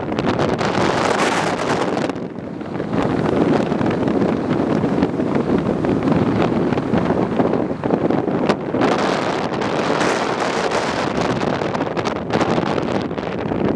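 Flooded River Cree rushing past in a steady wash of water noise, with wind buffeting the microphone in gusts and a brief lull about two seconds in.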